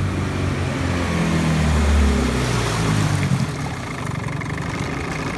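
A 1975 Mercury 7.5 hp two-stroke outboard runs smoothly, its pitch falling steadily as it is throttled back. About three and a half seconds in it settles to a quieter, lower idle.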